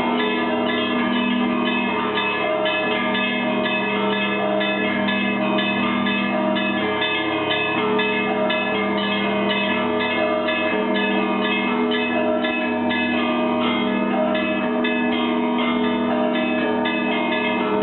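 Russian Orthodox monastery church bells ringing a continuous peal: fast, dense strikes on the smaller bells over deeper bell tones that swell every couple of seconds.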